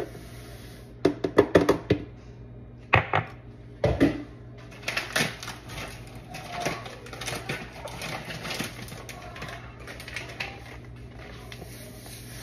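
Kitchen utensils being handled while sugar is measured out: a quick run of sharp clinks and knocks from a glass measuring cup and a steel pot, then a paper sugar bag crinkling and rustling as it is handled.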